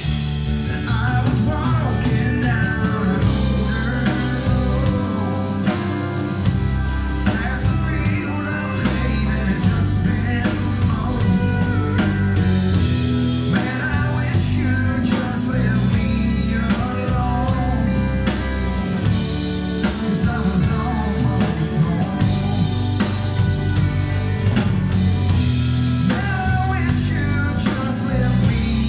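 Live country-rock band playing, with electric guitars and a drum kit.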